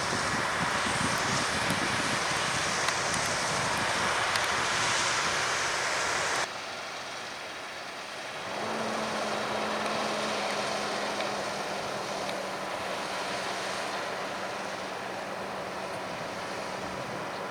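Harvest machinery engines running in the field, with wind noise on the microphone. The sound cuts off sharply about six seconds in to a quieter stretch, where a steady low engine hum comes in about two seconds later and holds.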